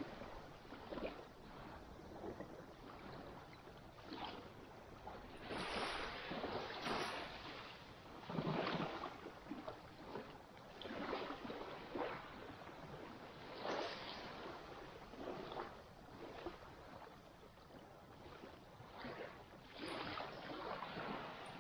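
Sea water washing and splashing in irregular surges, with no engine or other steady tone.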